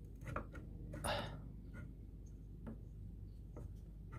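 Faint, scattered clicks and light knocks of metal engine parts being handled, with a brief scrape about a second in, as the cylinder of a Honda Spree 50cc two-stroke scooter engine is worked off.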